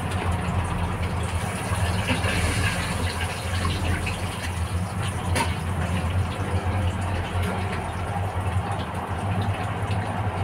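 A fish frying in hot oil in a metal pan: a steady sizzle over a constant low hum. A single metal clink about five seconds in, as the spatula comes into the pan.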